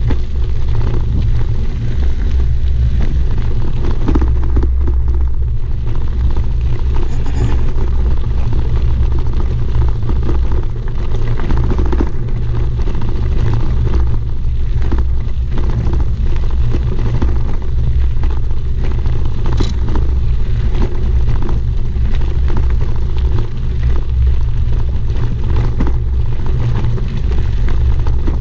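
Wind rumbling on the microphone of a bicycle-mounted camera, with tyres crunching and the bike rattling over a rough gravel track.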